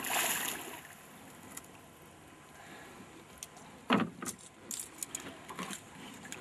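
A hooked golden dorado splashing at the surface at the start, followed by sharp clicks and knocks from the fishing tackle and boat, the loudest a single knock about four seconds in, with small metallic clicks after it.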